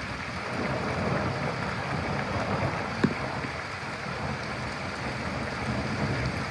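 Steady rain falling during a thunderstorm, with a single sharp click about three seconds in.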